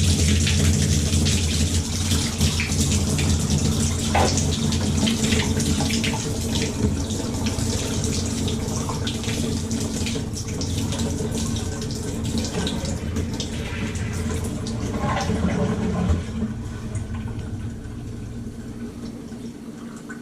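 Water running out of an open Moen tub and shower valve body into the tub as the supply line is flushed: a steady rush with a low hum that slowly tapers off toward the end, with a few small knocks.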